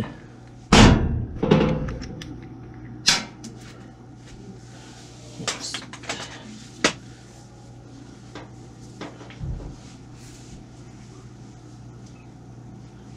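Knocks and clatter from handling a front-load washer's top panel and its screws. Two heavy thuds come about a second in, then a sharp knock near three seconds, a few lighter clicks, and a dull thump past the middle, all over a steady low hum.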